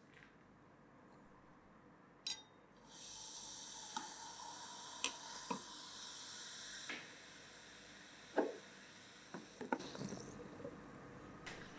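Baking soda tipped into a glass of liquid, fizzing up into foam. A steady bubbling hiss starts about three seconds in and fades near the end, with scattered small clicks and pops.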